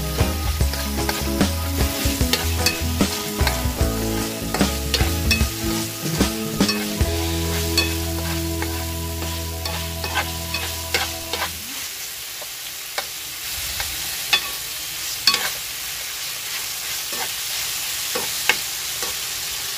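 Chicken frying and sizzling in a pan, stirred with a spatula that clicks and scrapes against the metal many times. Background music with a bass line plays over the first half and cuts off a little past halfway.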